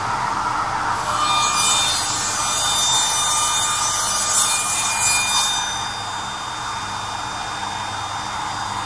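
STROMAB CT 800 mitre saw cutting a wooden block: a high blade whine with the hiss of the cut from about a second in, then the saw runs on more quietly after about five and a half seconds.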